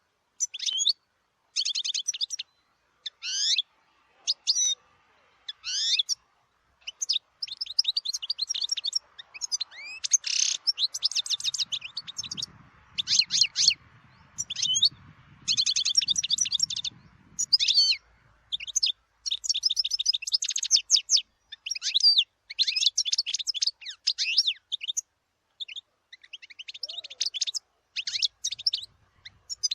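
European goldfinch singing: short bursts of rapid, high twittering and trills, spaced about a second apart at first, then coming nearly back to back from about a quarter of the way in.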